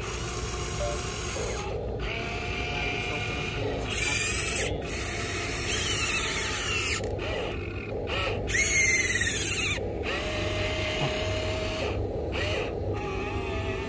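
Radio-controlled model excavator's small electric motors whining as the boom, arm and tracks move, in short runs that rise and fall in pitch with abrupt breaks between them.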